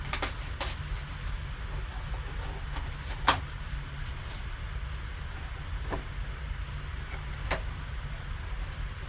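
A few sharp clicks and taps from handling and opening a cardboard trading-card box, the loudest about a third of the way in, over a steady low hum.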